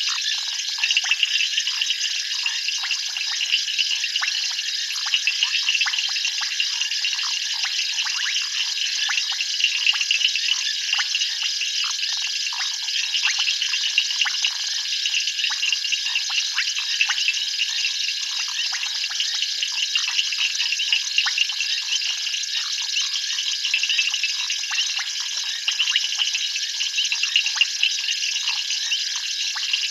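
Dense night chorus of calling frogs and insects: steady high-pitched trilling overlaid with a constant patter of rapid clicks, with no pauses.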